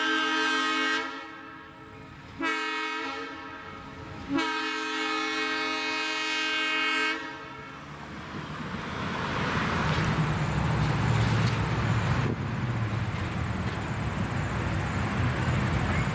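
Lima LS-1000 diesel switcher's air horn sounding several long blasts, with a short gap about a second in and a brief break about four seconds in, stopping about seven seconds in. After that the locomotive's diesel engine runs with a low rumble that grows louder as it draws near.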